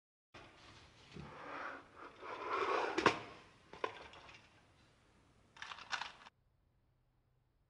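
A round storage case being handled: its lid scrapes and rubs as it is worked off, with a sharp click about three seconds in, then a few small clicks near the end as metal earring findings are picked from a compartment.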